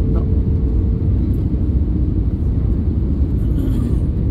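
Steady low rumble of engine and airflow noise inside the cabin of an Airbus A320neo on approach with its flaps extended, with a faint steady hum on top.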